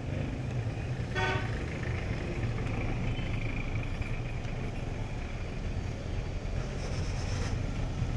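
Street traffic on a wet road: engines running in a steady low rumble, with one short car-horn toot about a second in. A passing vehicle's tyres hiss on the wet asphalt near the end.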